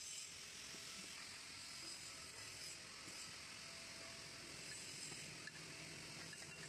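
Faint steady hiss of room tone, with no distinct sound in it.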